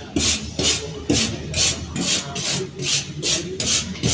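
Brush strokes scraping back and forth over a surface, a steady rhythm of about two strokes a second, as a welding workspace is cleaned.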